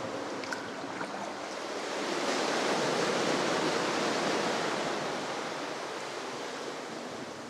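Sea water surging and washing inside a sea cave: a hiss of moving water that swells up about two seconds in and slowly dies away.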